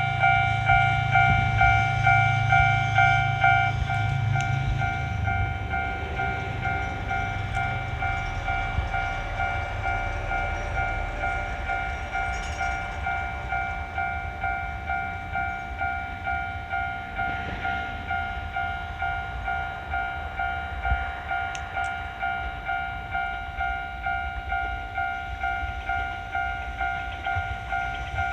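Japanese railroad crossing alarm ringing its repeated electronic "kan-kan" bell, about one and a half strikes a second, steady throughout. A train rumbles through the crossing in the first few seconds, its noise fading after that.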